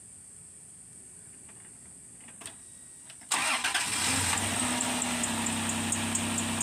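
A faint click, then about three seconds in the 2002 Honda Passport's 3.2-litre V6 starts, catching at once and settling into a steady idle with a light, regular ticking. It is the first start after the spark plug change.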